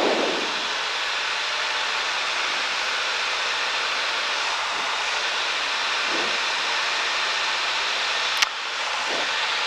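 Cabin noise of a Cessna 172 on final approach with power reduced and flaps out: a steady hiss of engine, propeller and rushing air heard inside the cockpit. A single sharp click comes near the end.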